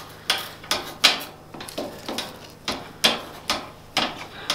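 Sharp clicks or knocks at a steady pace, about two and a half a second.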